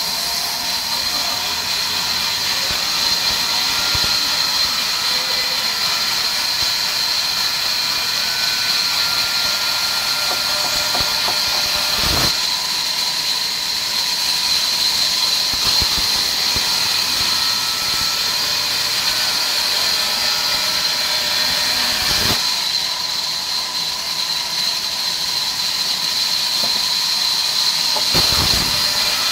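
Sawmill band saw running and cutting through a log, a steady high-pitched whine with a fainter lower tone beneath it. Three short knocks, about 12, 22 and 28 seconds in.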